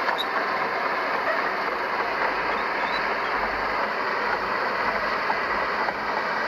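Heavy earthmoving machinery running steadily, a continuous diesel engine and mechanical noise with a few faint clicks.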